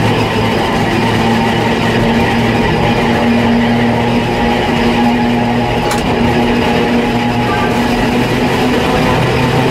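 Old electric tramcar of the Höllentalbahn narrow-gauge line running along the track, heard from the driver's cab: steady running noise with a constant electric hum, and a single sharp click about six seconds in.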